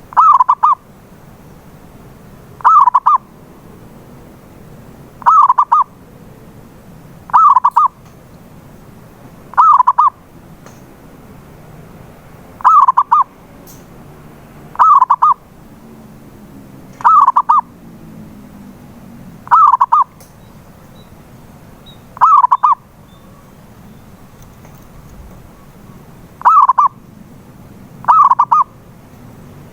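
Zebra dove (perkutut) cooing: short, loud, bubbling phrases of a few quick notes, repeated about every two to three seconds, with one longer pause about three quarters of the way through.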